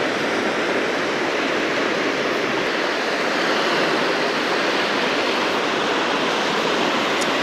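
Small surf waves washing steadily onto a sandy beach.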